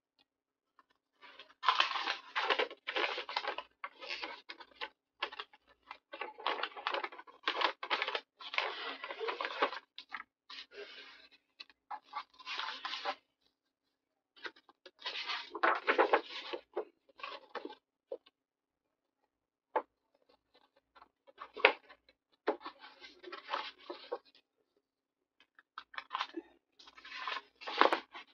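Paper being handled at a craft table, in irregular bursts of rustling with a few short pauses between them.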